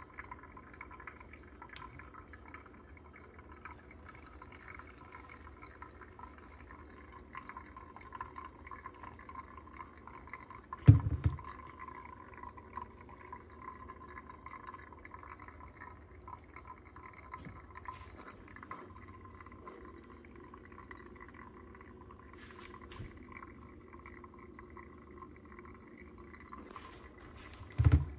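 Coffee trickling steadily as it is brewed or poured. A dull thump sounds about eleven seconds in, and another comes near the end.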